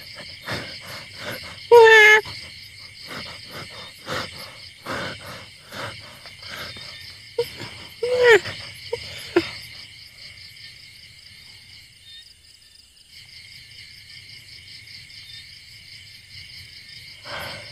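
Crickets and other night insects chirring steadily. A patter of clicks runs through the first ten seconds or so, and two short, loud pitched calls come about two and eight seconds in.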